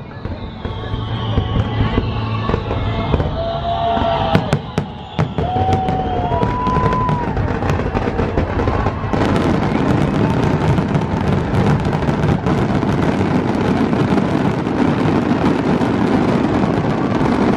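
Fireworks going off with show music playing: a few sharp, separate bangs in the first seconds, then from about nine seconds in a dense barrage of rapid crackling bursts.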